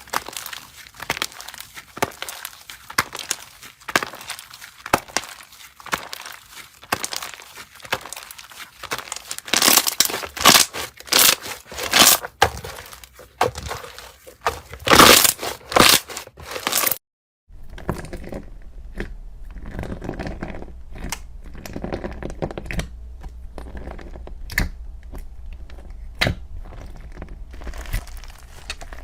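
Slime being squeezed and worked by hand, giving dense crackling and crunching clicks. About two-thirds of the way through the sound cuts out briefly. A quieter stretch follows, with sparser clicks over a low steady hum.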